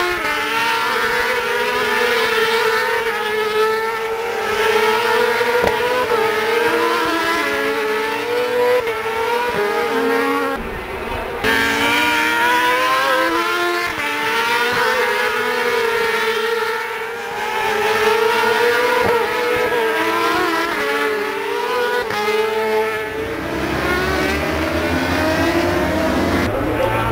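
Superbike racing engines at high revs, many at once, their pitch rising and falling with throttle and gear changes as the field races through the corners. The sound changes suddenly about eleven seconds in.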